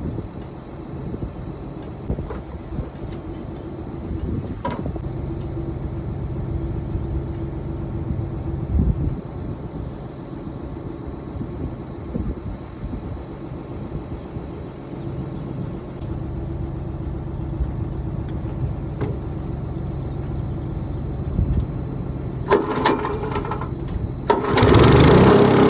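Tractor engine running steadily, a constant drone at one pitch. A much louder rush of noise comes in about 22 seconds in and holds to the end.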